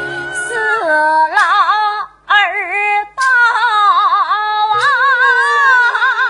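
A woman singing an errenzhuan melody in a high, held voice with a strong vibrato, breaking off briefly twice, about two and three seconds in.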